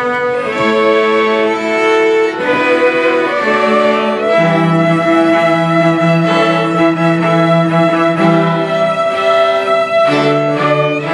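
Small string ensemble of violins and cello playing, several held bowed notes sounding together and changing every second or so.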